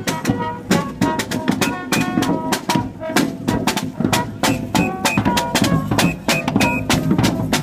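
Live parade street band playing: a snare drum beating a quick, steady rhythm with a brass melody of short notes over it.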